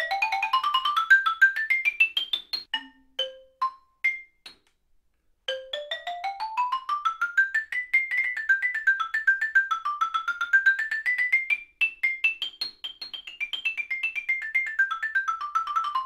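Xylophone played with two mallets in quick scale runs. First an ascending run with Balter Santoprene mallets, then a few single notes and about a second of silence. From about five and a half seconds in, a run with Musser M214 mallets climbs, ripples up and down, and descends near the end.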